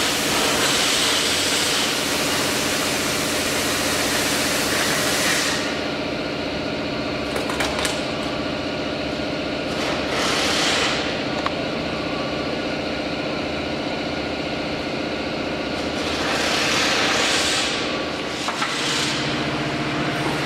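Four flame cutting torches on a CNC gantry cutting steel plate: a steady hiss of the flames and cutting jets over a machine hum. The high hiss drops back about a quarter of the way in, then swells up again twice, around the middle and near the end.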